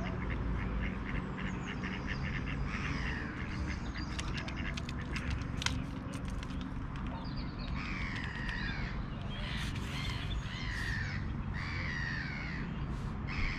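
Birds calling: a series of harsh, downward-sliding calls repeated about six times, mostly in the second half, with a run of quick ticks in the first half.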